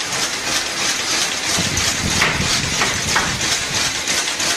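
Carton batch-coding machine running steadily, its feed rollers and mechanism making a fast, even clatter as cartons pass through.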